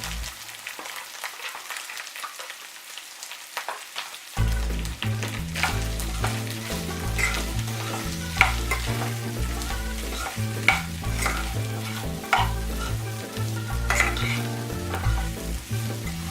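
Sago pearls being stirred into potatoes frying in hot oil in a pan: a steady sizzle with repeated spatula scrapes and clicks against the pan. Background music with a stepping bass line comes in about four seconds in.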